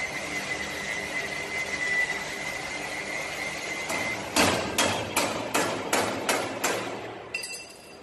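A hammer strikes the stainless steel frame seven times in quick succession, about three blows a second, each with a ringing metallic note. Before the blows there is a steady high-pitched whine over a hiss.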